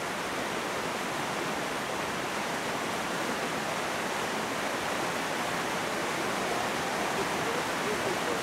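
Creek water pouring out of a large corrugated metal culvert and churning into whitewater: a steady, even rush.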